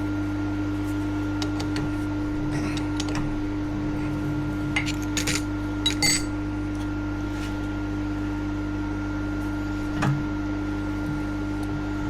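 Milling machine motor humming steadily, with several sharp metallic clinks and taps of tools on metal, the loudest a little past halfway and another near the end.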